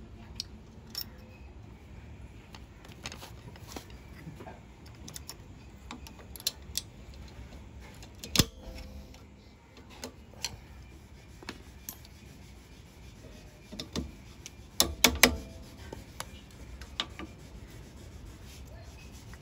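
Scattered clinks and knocks of metal tools and parts being handled during drum brake work, with a sharper knock about eight seconds in and a quick run of several knocks around fifteen seconds in.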